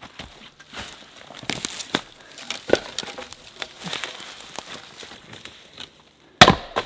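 Footsteps crunching and crackling through dry branches and brush, with small knocks of wood being handled. Near the end, one loud axe strike into a firewood round on a chopping block.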